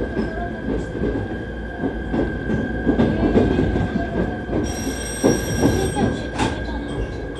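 Train heard from inside the car, rolling slowly over track and points: a steady running rumble with irregular knocks and a constant whine. From about five to six seconds in there is a brief high squeal, typical of wheels squealing on a curve, and a sharp knock follows.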